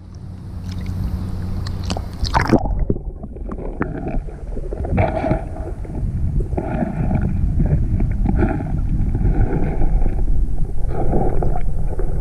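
Lake water gurgling and sloshing around a camera held in the water, heard muffled. The high sounds drop away about two and a half seconds in, as when the microphone goes under.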